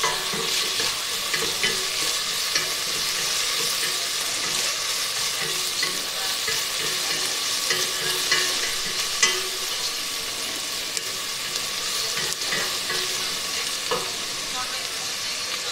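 Onions frying in hot oil in a pan, a steady sizzle, while a wooden spatula stirs them, with a short scrape or knock against the pan now and then.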